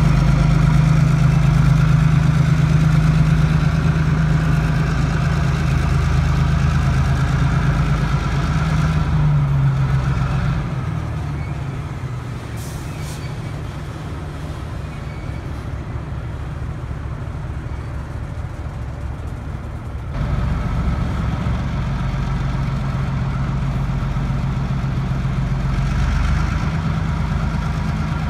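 Diesel switcher locomotives idling with a steady low engine drone. The drone weakens about ten seconds in and comes back strongly about ten seconds later.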